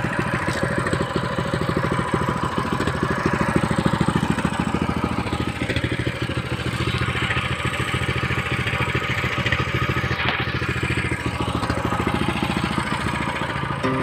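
Small single-cylinder petrol engine of a walk-behind power weeder running steadily at low speed.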